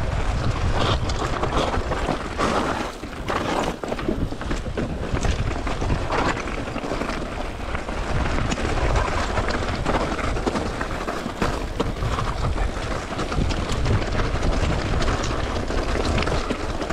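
Mountain bike riding downhill over a rocky, loose-slate track: tyres rolling over stones with a constant clatter of small knocks and rattles from the bike, and wind buffeting the handlebar-mounted camera's microphone with a low rumble.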